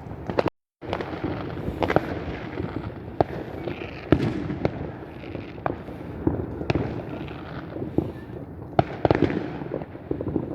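Fireworks going off: sharp bangs and pops at irregular intervals over a steady background crackle, the sound cutting out completely for a moment about half a second in.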